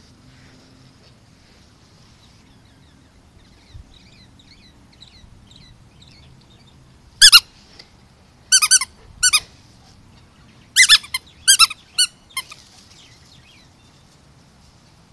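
Squeaky dog toy squeezed in a run of short, sharp, high-pitched squeaks, some in quick pairs, starting about halfway through and stopping a few seconds later.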